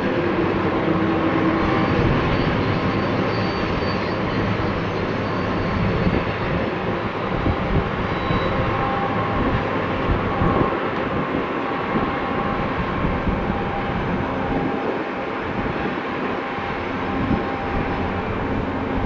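Long freight train rolling past, a steady loud rumble of its wheels on the rails.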